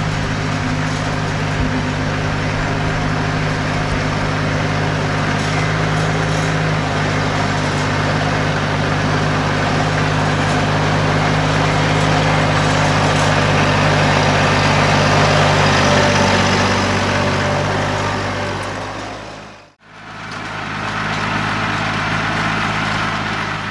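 Compact farm tractor's engine running steadily while working a tilled food plot with a rear rotary tiller. The sound cuts out for a moment near the end, then the engine continues.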